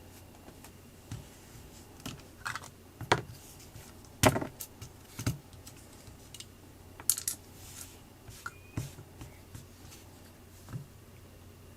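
Irregular light clicks and taps, about a dozen, from a plastic feature phone being handled.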